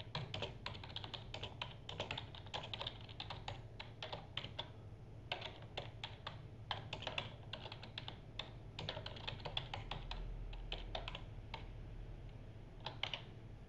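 Typing on a computer keyboard: irregular runs of key clicks, then a pause near the end broken by a couple of last keystrokes, over a faint low hum.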